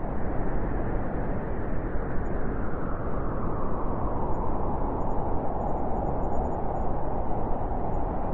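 Blizzard wind blowing steadily: a deep, even rushing noise that swells slightly toward the end.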